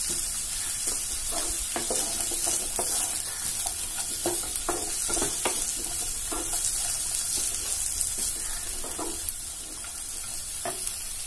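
Chopped onions and green capsicum sizzling as they fry in hot oil in a nonstick kadhai, stirred with a wooden spatula that scrapes and taps against the pan at irregular moments.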